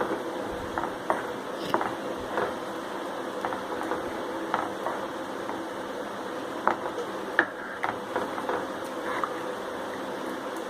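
A spoon stirring a thin besan sheera (gram flour, sugar and water) in a pan on a low flame, with irregular light taps and scrapes against the pan over a steady low hum.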